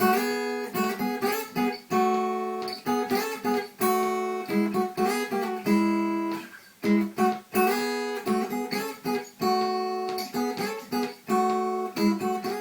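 Acoustic guitar strummed, a rhythmic chord pattern with sharp strokes between held chords: the instrumental introduction to a song.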